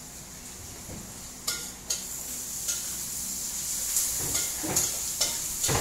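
Food sizzling in hot oil in a pan, starting with a sudden burst about a second and a half in, then a spatula scraping and tapping against the pan several times near the end.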